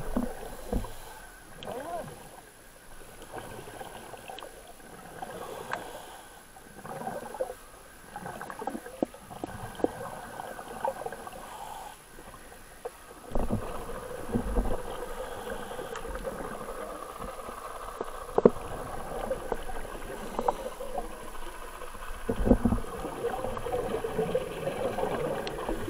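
Underwater sound of scuba divers breathing through their regulators: muffled gurgling bursts of exhaled bubbles every few seconds, loudest about 13 seconds in and again about 22 seconds in.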